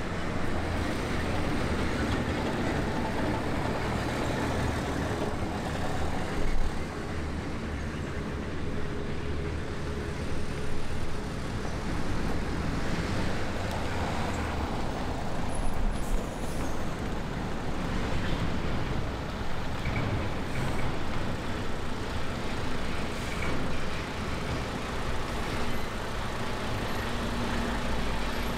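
Road traffic: cars and heavier vehicles passing, a continuous engine and tyre rumble.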